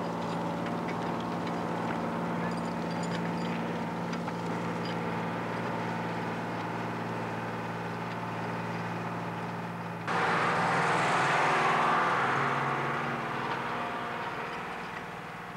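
Tractor engine running steadily while pulling a plough through the soil. About ten seconds in, a louder rushing noise cuts in and slowly fades.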